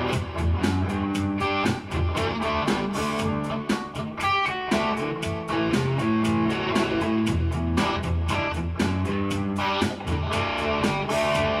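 Electric guitar strummed in a steady rhythm, playing the instrumental intro of a rock song with no singing yet.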